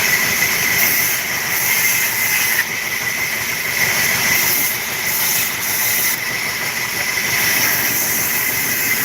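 A woodworking machine running steadily: a constant hiss with a thin, steady high whine throughout, the level dipping briefly now and then.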